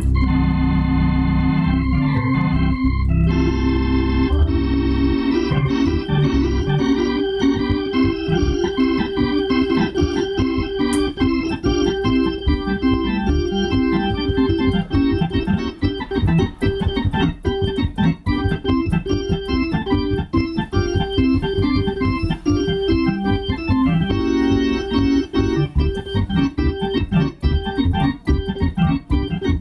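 A two-manual console organ being played: held chords for the first few seconds, then quick runs of short notes over sustained lower notes.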